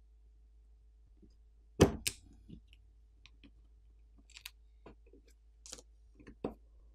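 Plastic pry tool clicking and snapping against a smartphone's battery and frame as the glued-in battery is pried loose. One sharp snap comes about two seconds in, followed by scattered softer clicks.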